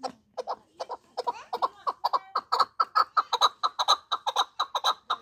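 Chukar partridge calling: a run of short, clucking notes that speeds up from about four to six or seven a second.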